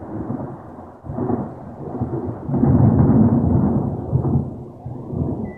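Thunder rumbling in long rolls, swelling about a second in and loudest around three seconds in, then fading away toward the end.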